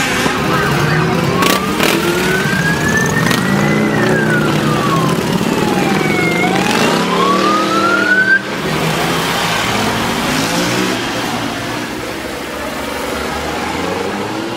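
A slow wailing siren rising, falling and rising again in pitch, then cutting off suddenly about eight seconds in, over the running engines of parading motorcycles.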